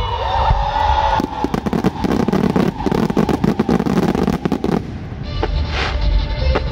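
Fireworks display launching a volley of rising comets and aerial shells. About a second in, a dense run of rapid crackling pops lasts several seconds, then gives way to hissing bursts with sharp cracks over a low rumble.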